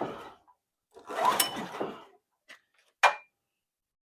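Titan industrial generator's engine pulled over on its recoil starter, two pulls of about a second each, cranking without firing: the engine will not start, later found to have no spark. A sharp click follows.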